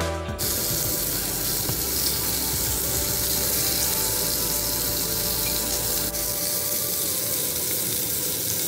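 Steak sizzling in a ridged grill pan: a steady, even sizzle that starts about half a second in.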